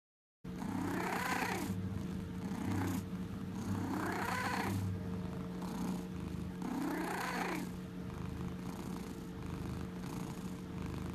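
Domestic cat purring close to the microphone, starting about half a second in. The purr swells louder three times, about three seconds apart.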